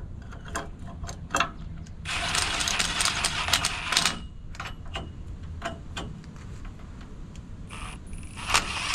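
Impact wrench running in two short bursts of about two seconds each, about two seconds in and again near the end, tightening the nuts on new leaf-spring U-bolts. Light metal clinks and knocks come between the bursts.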